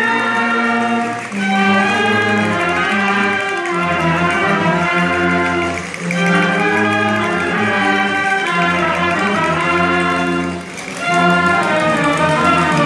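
Live wind band with sousaphones playing a dance tune in repeated phrases, with a brief break between phrases three times.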